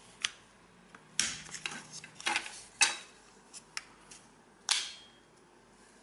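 A string of sharp plastic clicks and clacks from a taken-apart shopping cart coin lock being handled while a plastic token is pushed into its coin slot.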